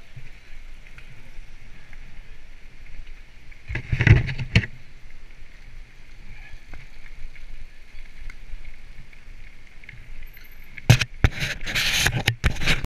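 Mountain bike rolling fast down a gravel track, heard from a helmet camera: a steady hiss of tyres and riding noise, with loud rushing noise about four seconds in and again over the last two seconds.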